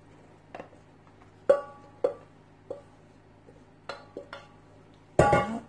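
Wooden spatula knocking against a stainless-steel mixing bowl as a thick minced-meat and potato mixture is scraped out, the bowl ringing briefly after each knock. There are about seven knocks at uneven intervals, and a louder clatter near the end.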